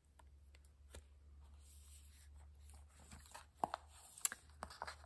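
Faint paper handling: light rustles and small taps as thick card journal pages are turned and a paper envelope pocket is opened, busier in the second half, over a low steady hum.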